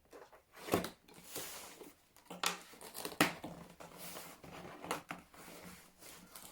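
A cardboard box being cut open with a blade and handled: stretches of scraping and tearing through tape and cardboard, broken by several sharp knocks.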